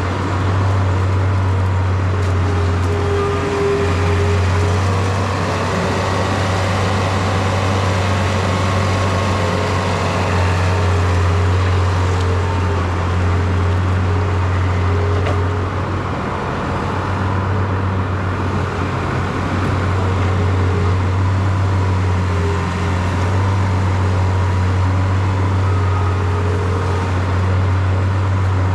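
Diesel engine of farm machinery running steadily under load, a constant low drone with small rises and dips.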